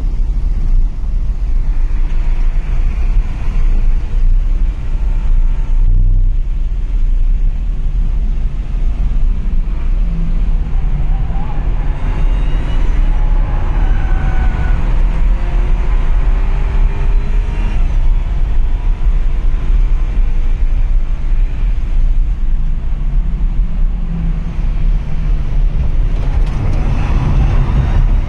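Car cabin noise at track speed: a heavy, steady low rumble of engine, tyres and wind, with the engine note faintly rising and falling now and then.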